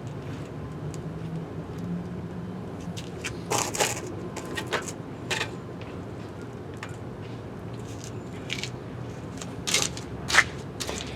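Scattered knocks, clicks and scrapes of an electric dirt bike and its work stand being shifted and adjusted by hand, over a steady low hum. The sharpest knock comes about ten seconds in.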